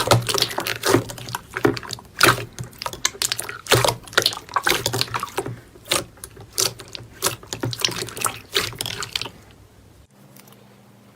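Slime being squished and worked, a fast irregular run of wet clicks and pops that stops about nine seconds in.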